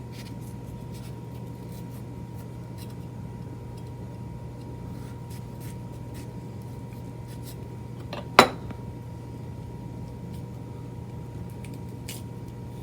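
Paring knife cutting into a vegetable for a garnish, with faint scattered snicks and ticks and one sharper click a little past the middle. A steady low electrical hum runs underneath.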